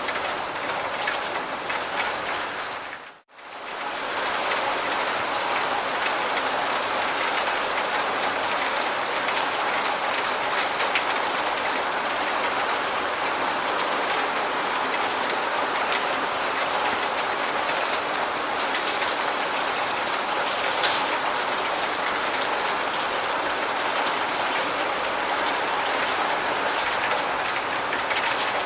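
Steady rain falling on a hard surface, with many small drop ticks. The rain fades away almost to nothing for a moment about three seconds in, then comes back.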